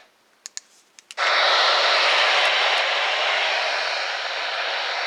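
A few faint clicks, then about a second in a loud, steady static hiss from a NOAA weather radio tuned to a channel with no signal.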